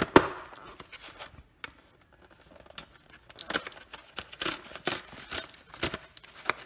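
Cardboard carton of a microwave meal being handled and opened: one sharp knock just after the start, then after a short pause a run of irregular tearing and crinkling cardboard sounds.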